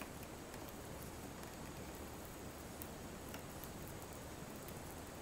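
Faint, scattered small ticks and clicks of a flat screwdriver tip working around the rim of a glued-on car badge while prying it loose, with a sharper click near the end.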